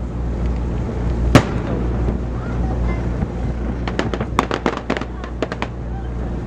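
Fireworks: one loud bang about a second and a half in, then a quick run of crackling pops about four seconds in, over a steady low rumble.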